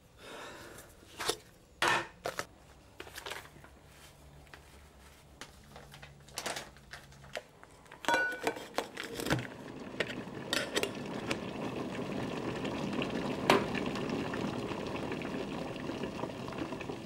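Clinks and knocks of a stainless steel canister and a glass French press being handled. Then an electric kettle heating, its hiss building steadily over the last several seconds.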